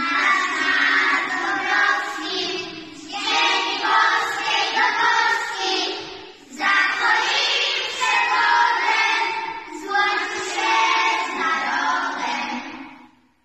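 A group of young children singing together in unison, in phrases of a few seconds with short breaths between; the singing fades out near the end.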